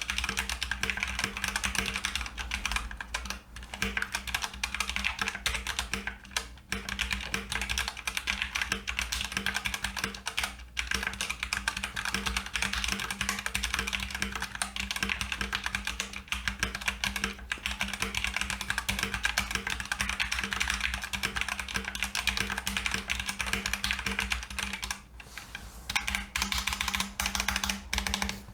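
Fast, continuous typing on a Redragon K629 mechanical keyboard with Otemu switches and ABS double-shot keycaps: a rapid stream of key clacks, broken by a few brief pauses.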